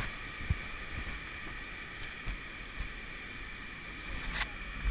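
Steady rush of whitewater from a mountain creek running at 175 cfs in the gorge below, with a few faint knocks.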